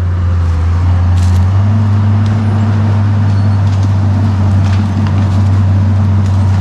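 Case 850K crawler bulldozer's diesel engine running steadily, a loud low drone, with a few sharp cracks scattered through it.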